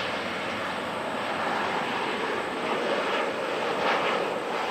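Jet engines of a Boeing 737-800 airliner coming in to land, a steady rushing noise that grows slightly louder near the end.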